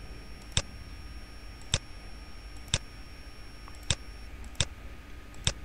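Computer mouse button clicked six times, about a second apart, each click setting a point of a freeform path being drawn.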